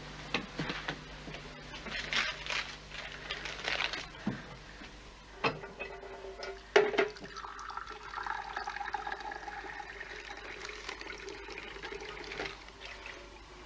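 Small kitchen clicks and rattles, then water running from a tap into a vessel for several seconds.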